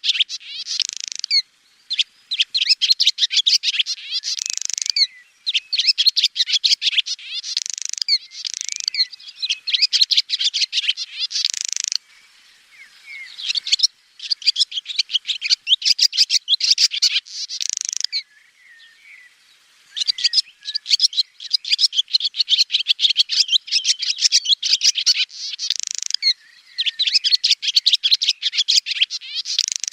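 Swallow twittering: fast, high-pitched chattering phrases of rapid chirps, each lasting a second or two, broken by brief pauses.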